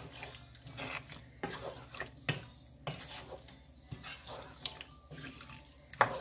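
Wooden spatula stirring and scraping thick, wet chana dal and beef in a metal pot, a stroke or two each second, as the mixture is fried down before water goes in. A sharp knock against the pot about six seconds in is the loudest sound.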